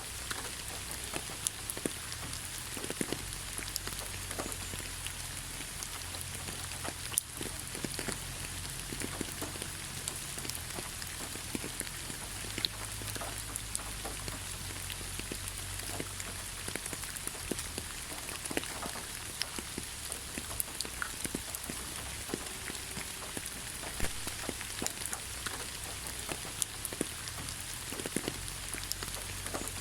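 Steady rain with individual drops striking a hard surface, heard as scattered sharp ticks over an even hiss.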